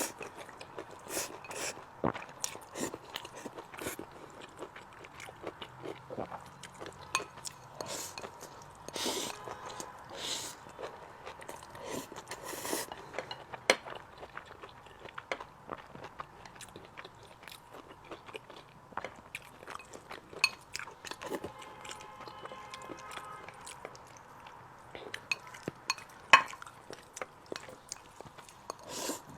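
Close-miked chewing and crunching of food, with irregular crisp bites and small clicks throughout.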